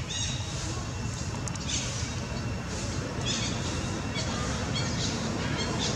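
Birds chirping in short, high, repeated calls that come in clusters about every second, over a steady low rumble of distant traffic.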